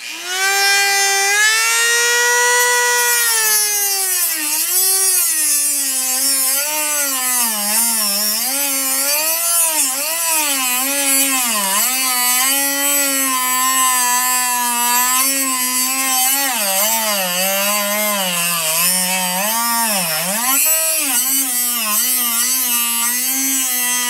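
Corded Dremel rotary tool with a cut-off wheel grinding into a disc padlock. Its motor whine drops in pitch about four seconds in as the wheel bites into the metal, then wavers up and down with the pressure, over a steady gritty hiss.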